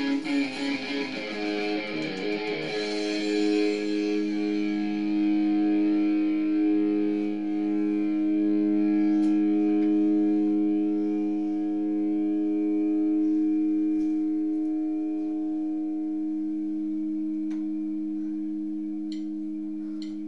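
Electric guitar: a quick run of notes, then a final chord struck about two and a half seconds in and left to ring, slowly fading. A few faint clicks come near the end.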